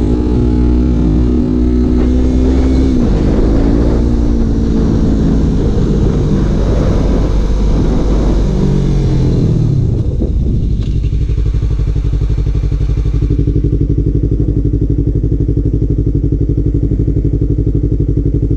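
Yamaha YZF-R3 parallel-twin engine under way, its note falling as the bike slows about halfway through, then idling steadily with an even pulse.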